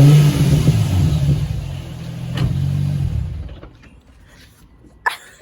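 Infiniti G35's 3.5-litre V6 engine revving: a rising rev at the start, another swell about two seconds later, then the engine sound dies away after about three seconds. A sharp click near the end.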